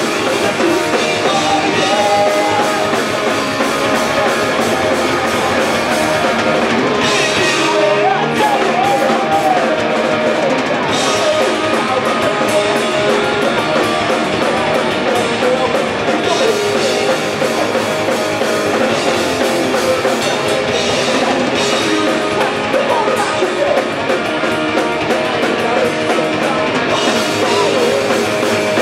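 Punk rock band playing live: guitars, drum kit and a singer.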